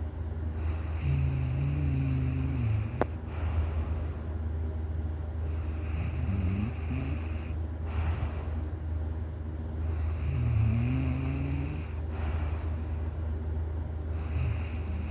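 A sleeping person snoring in slow, regular breaths, one about every four to five seconds, each with a low buzzing pitch. A steady low hum runs underneath.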